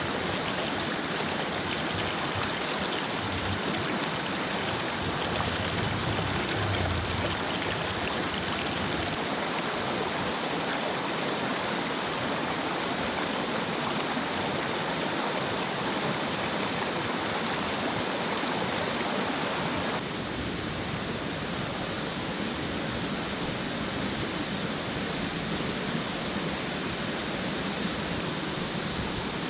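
Shallow rocky stream rushing over stones, a steady hiss of running water. About two-thirds of the way through it drops to a slightly softer steady rush.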